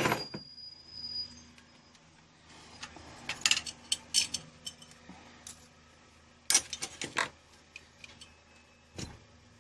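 Metal tools and engine parts clinking and clattering while being handled during a motorcycle engine top-end teardown: a sharp clink at the start, short clusters of clinks a few seconds in and again past the middle, and another knock near the end.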